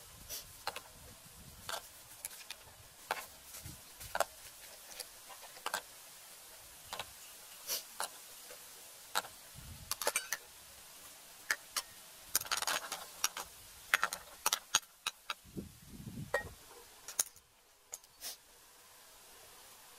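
Broth with pork-stuffed snails simmering in an aluminium pot: irregular small pops and clicks as bubbles burst against the shells, with a brief denser crackle partway through. Near the end there is a knock as the metal lid goes onto the pot.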